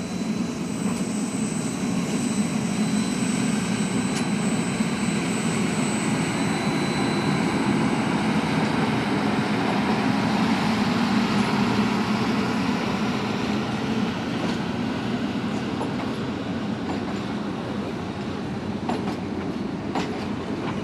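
Union Pacific streamlined passenger cars rolling past on the track: a steady rumble of steel wheels on the rails that swells a little toward the middle and eases off near the end.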